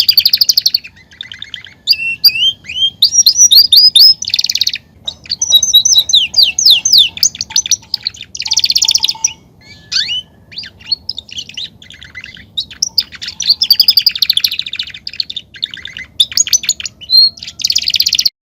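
Male domestic canary singing a long, loud song of rapid trills and quick rising and falling whistled notes, in phrases broken by short pauses. It is the mating song used to excite canaries into breeding condition.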